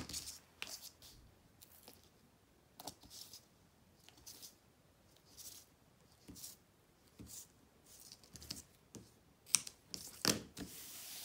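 Double-sided tape being pulled off its roll and pressed down by hand along a silicone faux-leather strip: short scattered rasps and light clicks, with a longer tearing sound about ten seconds in.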